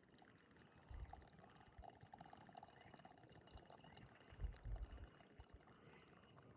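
Faint sound of liquid being poured, with a few low thumps, about a second in and again near the middle.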